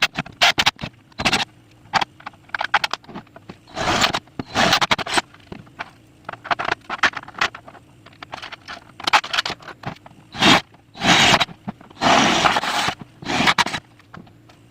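Irregular scraping and clattering of tools and parts, in short bursts with clicks between them, as components are fitted and bolted into an amplifier box.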